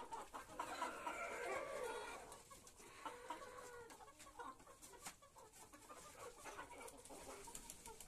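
A flock of Sonali chickens clucking, louder and busier in the first two seconds, then softer.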